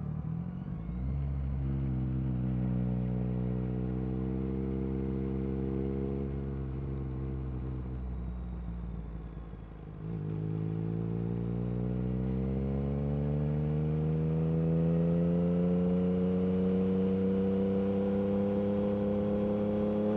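Yamaha MT-09 SP's inline three-cylinder engine running through an Akrapovic carbon racing exhaust, pulling at a fairly steady note. About ten seconds in, the throttle eases off briefly. It then pulls again, the note climbing slowly and growing louder.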